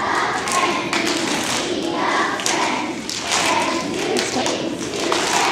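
A group of young children clapping their hands while singing together.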